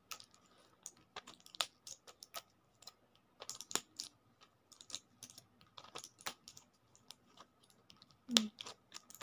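Plastic medicine wrappers and a foil blister pack of tablets being handled, giving a string of irregular, sharp crinkling clicks, with one louder click near the end.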